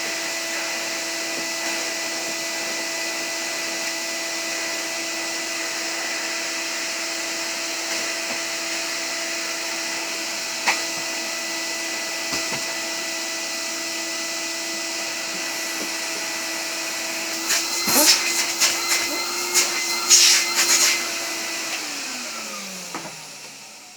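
Numatic Henry vacuum cleaner running with a steady hum and hiss, with a few knocks and rattles about 18 to 21 seconds in. It is then switched off and winds down, its hum falling in pitch as it fades near the end.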